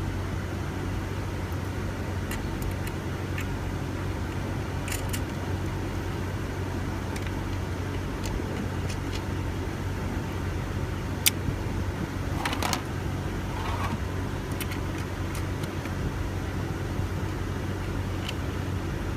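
Steady low hum of the car running, with scattered small clicks and rattles from plastic shifter-console parts being handled. One sharp click comes about 11 seconds in, followed by a short cluster of rattles.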